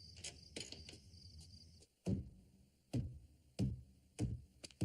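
Crickets chirping in a steady pulsing trill, then, about two seconds in, a run of heavy thumps roughly every two-thirds of a second.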